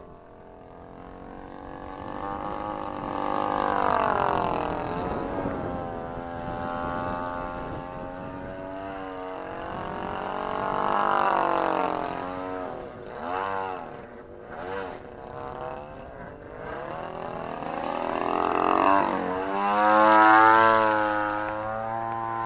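The engine and propeller of a 3DHS Edge 540 74-inch radio-controlled aerobatic model plane running in flight overhead. Its pitch and loudness swell and fall again and again as it manoeuvres and changes throttle, wavering rapidly partway through and rising to its loudest near the end.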